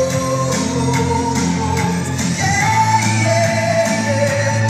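Pop-style song: a voice singing long held notes over a band with a steady beat.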